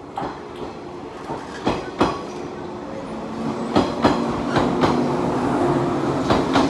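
JR 185 series electric train pulling out and gathering speed past the platform, its wheels clacking over rail joints in irregular knocks. The running noise grows louder, and a steady motor hum comes in about halfway.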